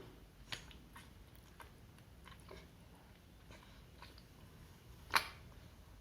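Quiet room with faint, scattered small clicks and ticks; a sharper click comes about half a second in and a louder one about five seconds in.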